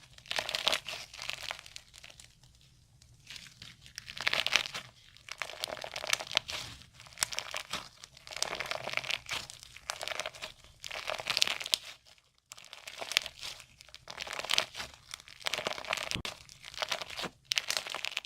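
Slime being squeezed and pressed by hand, crackling and crinkling in repeated bursts about every second or two, with a short lull near the start.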